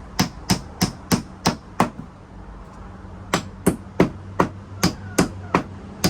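Hammer driving leftover finishing nails into a wooden chicken ramp, quick even strikes about three a second, with a short pause about two seconds in.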